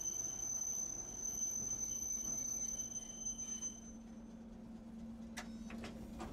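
Tosaden streetcar's electrical equipment: a steady high-pitched whine that cuts out about three and a half seconds in, leaving a low steady hum, with a few sharp clicks near the end.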